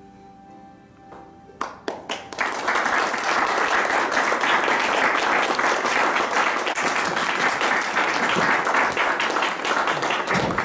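Soft closing music with held tones, then a small audience breaks into applause about a second and a half in, a few first claps quickly swelling into steady clapping.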